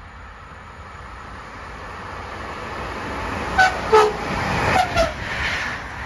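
Electric passenger train approaching at speed, its running noise building steadily. About three and a half to five seconds in it sounds three short horn toots of differing pitch in quick succession, then rushes past.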